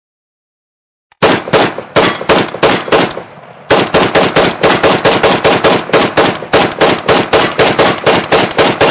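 AK-47 rifle firing: about a second in, a short run of several shots, then after a brief fading pause, continuous fully automatic fire, a fast even stream of shots.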